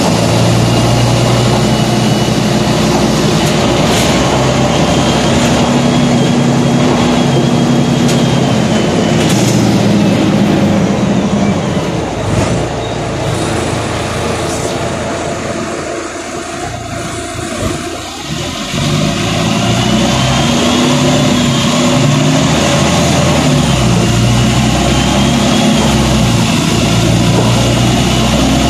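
EGO city bus 99-357 heard from inside its passenger cabin while driving: the engine runs and its pitch rises and falls through the gears, with scattered rattles and clicks from the cabin fittings. Near the middle the engine note drops away and things go quieter for several seconds, then the engine pulls again.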